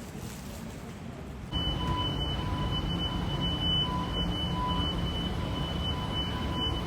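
Passenger train running, heard from on board: a low rumble with a steady high-pitched whine that flickers on and off. The whole sound steps up suddenly about a second and a half in.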